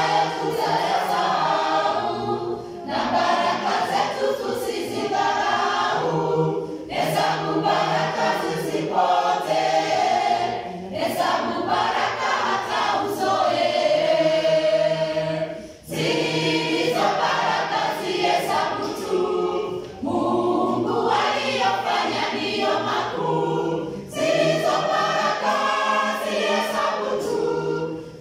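Church choir singing a Swahili hymn together under a conductor, in sung phrases a few seconds long with brief breaks between them.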